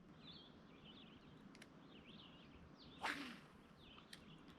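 A fishing rod swished through a cast about three seconds in: one brief whoosh falling in pitch, over faint birdsong.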